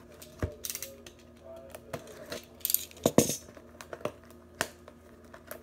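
Cardboard box of trading-card packs being handled and opened by hand: irregular taps, scrapes and sharp rustles of the box flaps and wrapping, with a low thump about half a second in.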